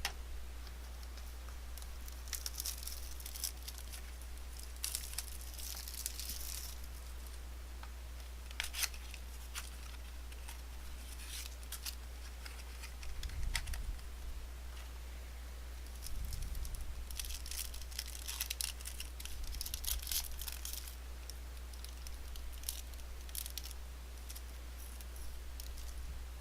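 Trading-card packaging being torn open and handled: crinkling foil wrappers and cardboard, with scattered crackles and sharp tearing clicks that come in clusters, over a steady low hum.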